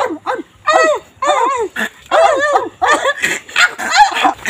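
Two people making wordless caveman-style yelps and shouts, a rapid run of short, high, arching calls one after another.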